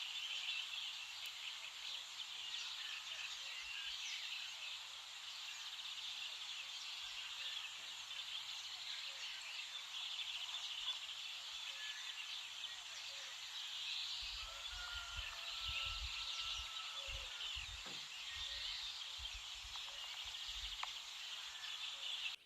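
Dawn chorus: many small birds singing and chirping at once in a dense, steady high-pitched wash, with one longer held call about two-thirds of the way in. Low thumps of wind or handling on the microphone come and go in the second half.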